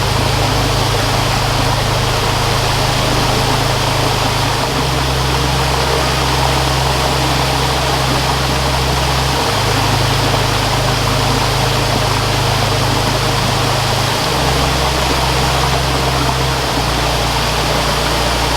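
Stream water flowing and rushing steadily. Underneath runs a low droning tone that shifts in pitch every few seconds.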